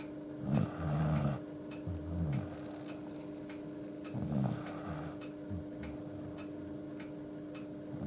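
Akita dog snoring loudly in its sleep, a deep rumbling snore on each breath, two breaths about three and a half seconds apart. The owner puts the snoring down to sleeping with its head tilted upward, not to a breathing illness.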